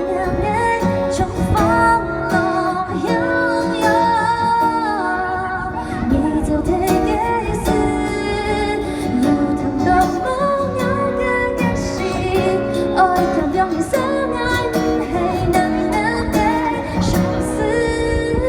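Live band playing a slow pop song, with a female voice singing the melody over the accompaniment.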